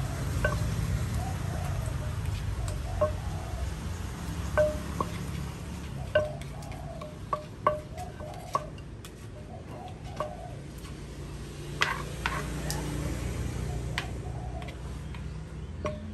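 Wooden pestle knocking in a large clay mortar as a salad is pounded and mixed: irregular hollow knocks, each with a short ring, roughly one a second, with a spoon scraping and turning the mix between them.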